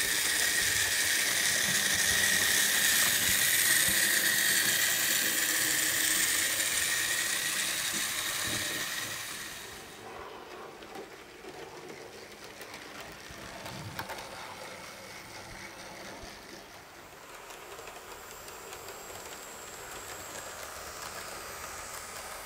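Model train running on its track: a loud hiss with a steady high whine for about the first ten seconds, then fainter running with scattered light clicks.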